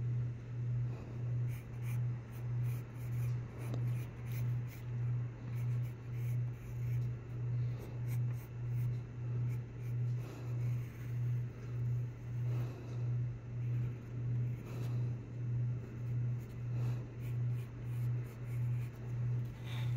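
Graphite pencil scratching and shading on sketchbook paper, under a loud low hum that swells and fades about twice a second.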